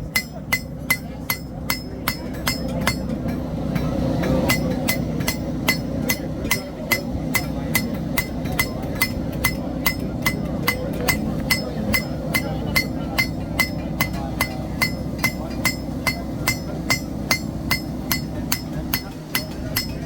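Steady hand-hammer blows on steel at an anvil, forging knife blades, about two to three strikes a second, each with a bright metallic ring, over a steady low rumble.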